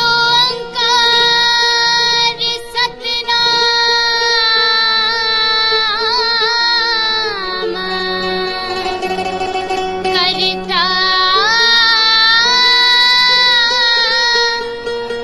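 Background music: a high voice sings long, sliding held notes over a steady drone.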